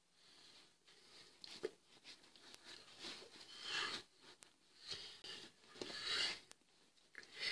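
Faint rustling of a leather jacket and hands brushing together as a man signs, coming in soft irregular swishes, the strongest a little after halfway.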